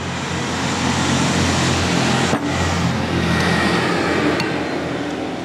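Steady engine rumble with a low hum and rushing noise that swells a little and eases off, with one light knock about two and a half seconds in.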